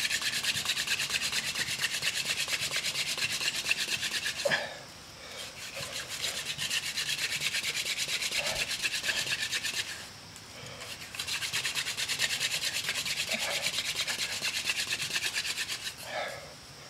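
Hand-drill friction fire: a wooden spindle twirled fast between the palms, grinding into a wooden fireboard with a rapid, rhythmic rubbing. The rubbing comes in three runs with short breaks about four and a half and ten seconds in, and stops about a second before the end.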